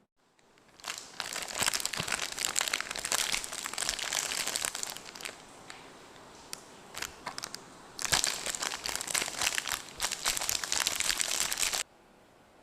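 Plastic candy wrapper crinkling as it is handled and opened by hand: two long stretches of dense crinkling with a few scattered crackles between them, cutting off suddenly near the end.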